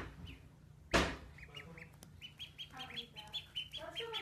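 A sudden loud bump about a second in, then a duckling peeping in quick, short, high-pitched chirps, about three to four a second.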